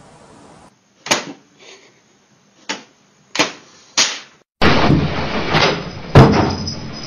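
Four sharp knocks, more or less a second apart, then from about halfway a loud, continuous rattling clatter broken by heavy bangs, the loudest near the end.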